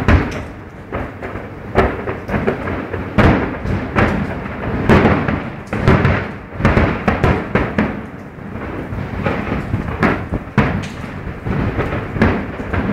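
Aerial fireworks shells bursting: an uneven string of booms and thuds, about one or two a second, over a continuous rumble.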